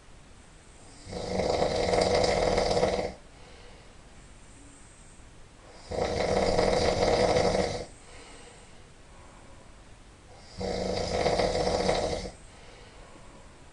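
A person snoring really loud in sleep: three long snores, each about two seconds, coming about every four to five seconds with quieter gaps between.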